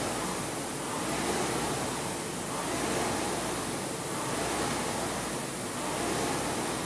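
Concept2 rowing machine's air flywheel whooshing, the rush swelling with each drive stroke and easing on the recovery, about one stroke every 1.6 seconds.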